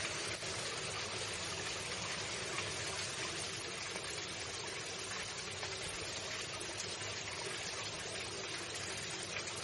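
Water flowing steadily in a stream, an even rushing and splashing with no breaks.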